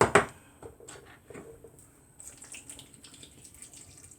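Two sharp knocks, then a faint uneven trickle and dripping with small clicks, as brine is drained from a can of black olives.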